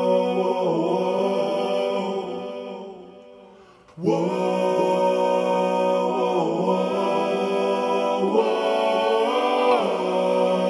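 Background music of long, layered held tones. It fades out over about two seconds and starts again abruptly about four seconds in.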